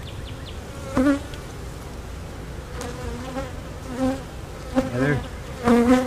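Honey bees buzzing steadily around an opened hive box as a bee-covered frame is lifted out of the super.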